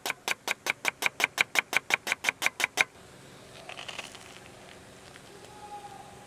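Kitchen knife sawing back and forth through the toasted crust of a filled bread loaf on a wooden cutting board: a fast, even rasping of about six strokes a second that stops just under three seconds in. About a second later comes a brief crunch of a bite into the toasted bread.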